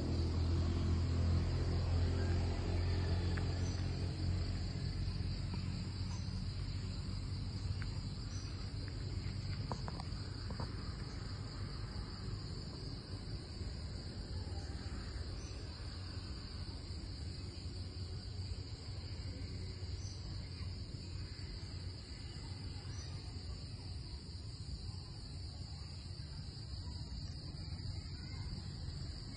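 Steady high-pitched chirring of an insect chorus, crickets or cicadas, running unbroken. A low hum is loudest at the start and fades away over the first several seconds.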